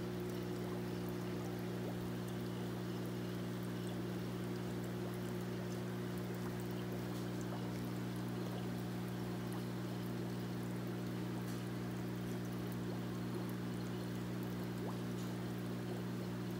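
Steady splashing of water falling into a stingray tank, as from the filter return outflow, with a steady low hum underneath.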